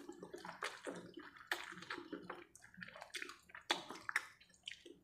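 Close-miked mouth sounds of someone eating noodles: wet slurps and chewing in a string of short, irregular smacks.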